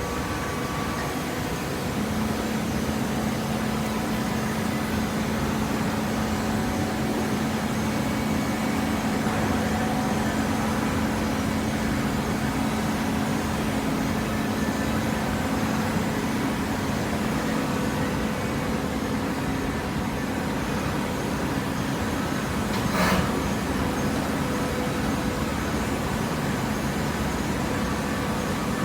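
Heavy machinery running with a steady noise and a constant hum, and one sharp knock about 23 seconds in.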